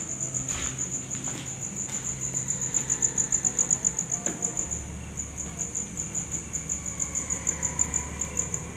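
Insect chirping continuously in rapid, even, high-pitched pulses, like a cricket.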